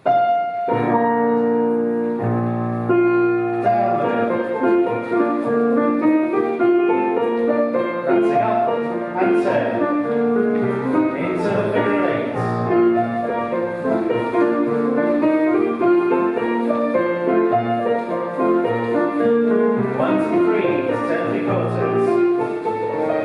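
Piano playing Scottish country dance music in jig time: a few held chords first, then the jig tune at a brisk, even pulse.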